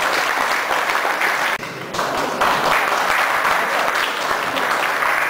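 Audience applauding, a dense crackle of many hands clapping that breaks off briefly about a second and a half in, then carries on.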